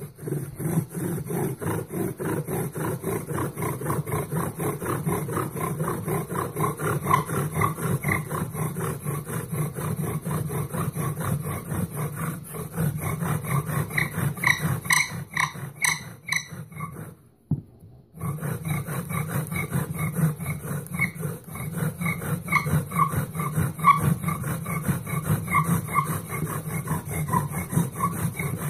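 Bow drill working: a tamarack spindle grinding and squeaking in its hearth board, in a steady back-and-forth rhythm from the bow strokes. The rubbing stops for a moment a little past halfway, then starts again.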